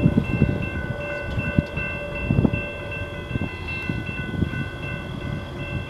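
Freight train rolling past: a low rumble with irregular clicks from the wheels over the rail joints, under a steady chord of high tones from a locomotive air horn.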